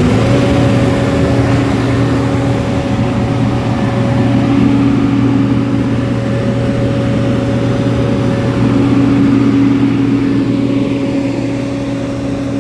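Road milling machine's diesel engine revving up and held at a steady high speed as the machine drives forward to climb the loading ramp.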